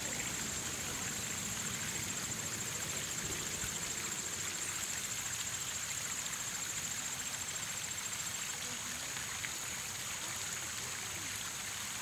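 Outdoor creekside ambience: an even hiss of gently running creek water under a steady, high-pitched insect trill.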